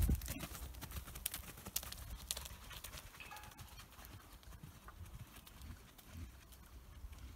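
Exmoor pony's hoofbeats crunching on a loose arena surface at a trot, fading as the pony moves away.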